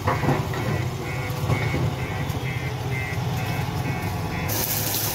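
JCB 3DX backhoe loader's diesel engine working under load while the machine pushes brush and rubble, with its warning beeper sounding about twice a second until about four and a half seconds in. A hiss comes in near the end.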